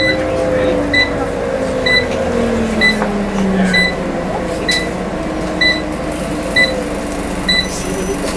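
Scania CN94UB OmniCity bus heard from inside the passenger saloon while under way: the engine and drivetrain tone falls in pitch about three to four seconds in, then holds steady. A short electronic beep repeats about once a second and stops near the end.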